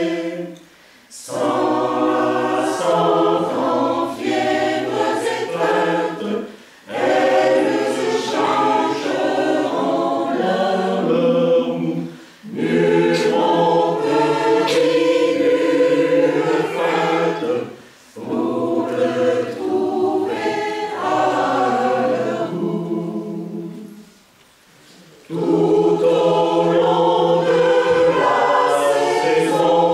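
Mixed choir singing unaccompanied, in phrases of about five or six seconds with a brief breath between each.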